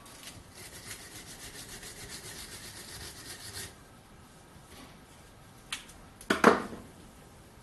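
Rapid back-and-forth scrubbing of rust off the metal at the back of a Schaublin 102 lathe headstock, about five strokes a second, stopping after about three and a half seconds. A sharp knock comes about six seconds in.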